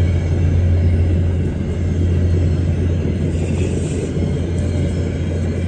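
VIA Rail passenger cars rolling past on the track: a steady low rumble of wheels on rail, with a thin high whine coming in about two seconds in.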